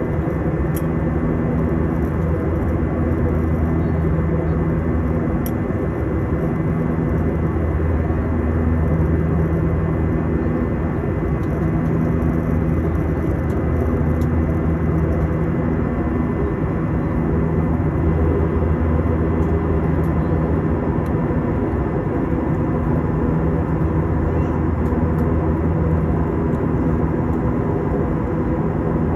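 Steady engine drone: a continuous low hum with a few steady higher tones and no let-up.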